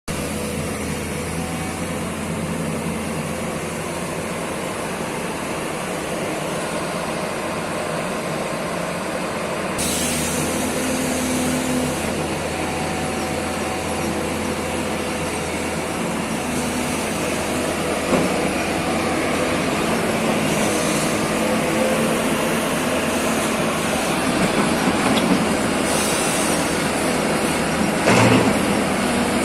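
Sany 245C excavator's diesel engine running steadily under work, a hissing sound joining about ten seconds in. There is a short knock a little past halfway and a louder thump near the end.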